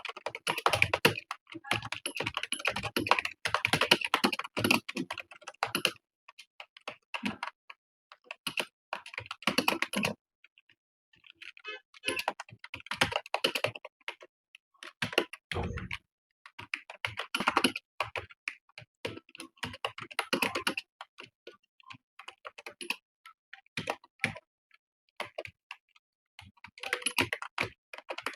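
Typing on a computer keyboard: fast runs of keystrokes broken by short pauses, with one longer pause a third of the way in and a single dull thump near the middle.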